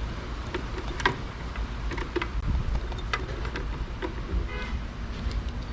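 A few sharp clicks and taps of a plastic tail lamp assembly being handled and pushed into place on the car body, with a brief squeak about four and a half seconds in, over a steady low rumble.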